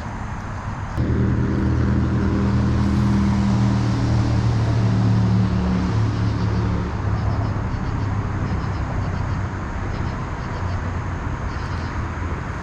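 A low engine drone with a steady hum starts suddenly about a second in and fades over the next several seconds, over a steady rushing noise.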